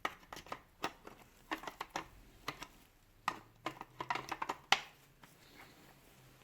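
Scattered small clicks and taps of hard plastic and metal parts of a rotary hammer being handled during disassembly, irregular, with one sharper click near the end.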